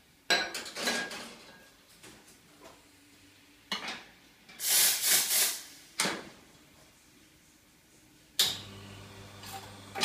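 Wega Atlas two-group espresso machine: a ceramic cup clinks onto the metal drip tray, then there is a loud hiss of steam lasting about a second halfway through. About 8.5 s in there is a click, and a steady pump hum starts as the shot begins.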